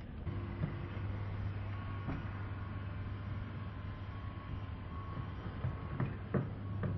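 Steady low machine hum, with a few faint taps near the end.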